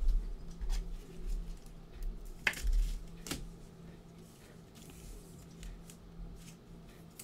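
Trading-card packs being handled at a table: several low bumps in the first three seconds, then two sharp crinkles about a second apart, over a faint steady hum.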